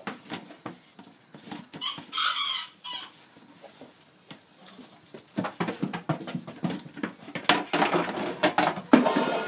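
An animal calling, with one loud wavering call about two seconds in. From about halfway, rapid clattering and knocking joins in and grows louder toward the end.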